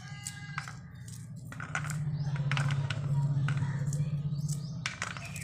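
Pomegranate rind being torn apart by hand, with small crackles and clicks as arils drop onto a steel plate. Under it runs a low hum that swells for a few seconds in the middle.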